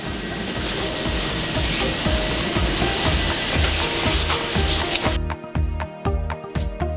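A new brake disc on a GAZelle van's front hub being cleaned with brake cleaner to strip its anti-corrosion shipping grease, a dense rubbing hiss that stops about five seconds in. Background music with a steady beat underneath.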